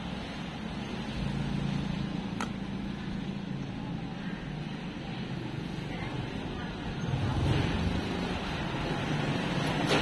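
Steady low engine hum with street background noise, growing a little louder about seven seconds in. A sharp click comes about two and a half seconds in and another near the end.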